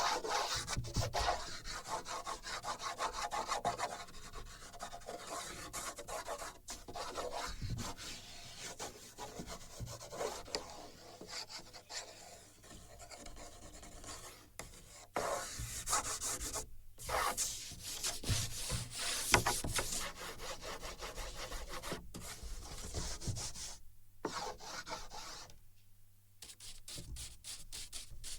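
A drawing tool scratching and rubbing across a sheet on a wooden board, picked up by contact sensors on the board: many quick, irregular strokes, with short pauses about two-thirds of the way through and again near the end.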